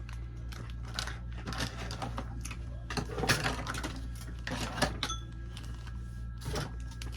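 Small plastic toy cutlery and dishes being handled, clicking and clattering in irregular light taps, with a few denser clusters, over a steady low hum.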